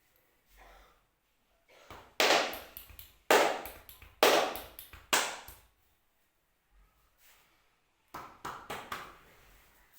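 Hands striking the head and shoulders in a massage: four loud, sharp slaps about a second apart, then a quick run of lighter pats near the end.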